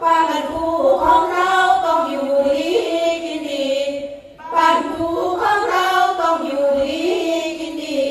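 Female voices singing Sarabhanya, Thai Buddhist chanted verse, without instruments, in two long melodic phrases with a short break about four seconds in.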